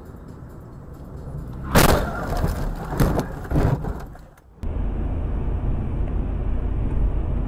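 Car collision heard from inside the dashcam car: a loud crash about two seconds in, followed by several more crunching knocks over the next two seconds. About halfway through it gives way to steady in-car road and engine noise.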